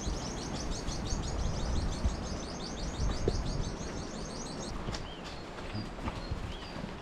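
A bird singing a long, rapid trill of high, evenly repeated notes that stops about five seconds in, followed by a few short, separate high chirps, over a low outdoor rumble.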